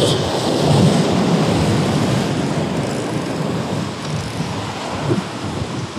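Surf breaking and washing over jetty boulders, with wind rumbling on the microphone.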